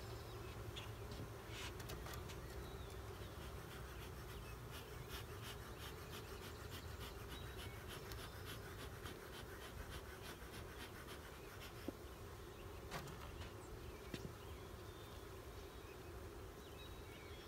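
Honeybees from an open nuc colony buzzing as a faint, steady hum, with a few light clicks and knocks from the frames and boxes being handled.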